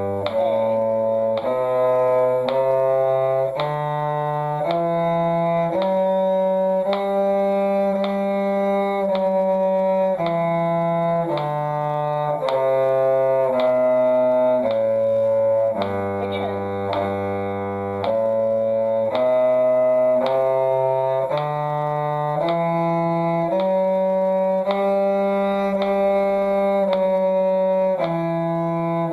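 Bowed strings playing a slow one-octave G major scale, one dotted-quarter note per pitch with a click on each change, over a lower line in harmony.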